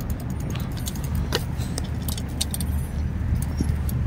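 Wind rumbling on the microphone of a camera riding on a moving bicycle, with frequent light rattles and clicks from the bike as it rolls along the pavement.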